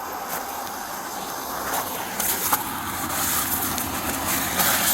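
Steady vehicle and road noise, a hiss with no clear engine tone, with a few light clicks and a brief rise in hiss near the end.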